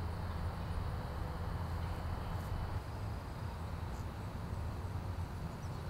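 Outdoor ambience: a steady low rumble with a faint, high insect-like trill.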